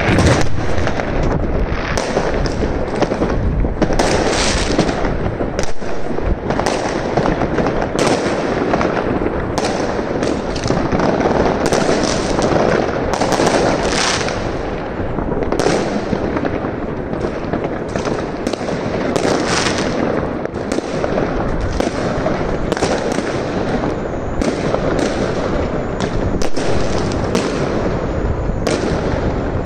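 Fireworks barrage: dense, continuous crackling and popping from bursting aerial shells, with frequent sharp bangs throughout.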